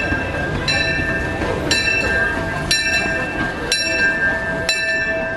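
A steam locomotive's bell ringing steadily, struck about once a second for five strokes, each stroke ringing on, over the low rumble of the train.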